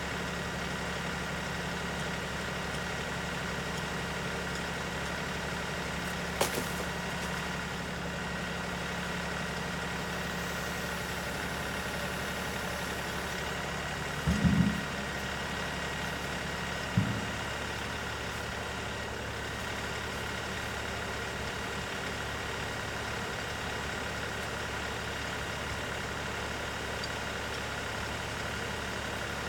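LS XR3135 compact tractor's diesel engine running steadily, with a few thumps, the loudest about halfway through.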